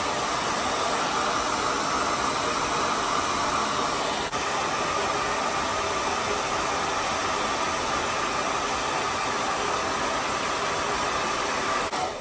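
Diva hand-held hair dryer running steadily on its warm setting, blowing into a legging leg stretched over a shower cap as a makeshift hood, then switched off at the very end.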